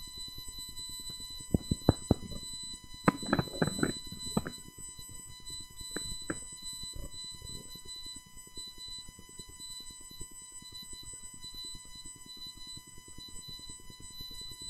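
Faint, steady high-pitched electronic whine made of several evenly spaced tones, with a few short knocks and clatters of handling in the room about two to four seconds in and again around six seconds in.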